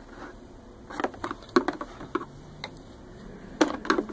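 Two flathead screwdrivers clicking and scraping against the hard plastic hose retainer and housing of a Rug Doctor Mighty Pro X3 carpet cleaner as they are worked under the retainer to pry it loose. The clicks are irregular and sharp, with a louder cluster near the end.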